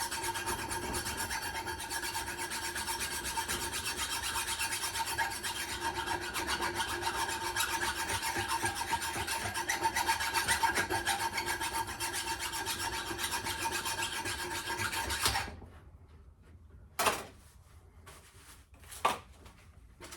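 Rapid hand strokes scraping and rubbing rust off an old steel axe head with an abrasive. The strokes stop suddenly about three quarters of the way through, followed by a couple of light knocks.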